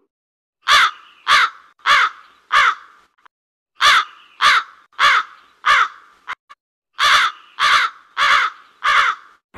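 Crow cawing: three runs of four caws each, about two thirds of a second apart, with a short gap between runs.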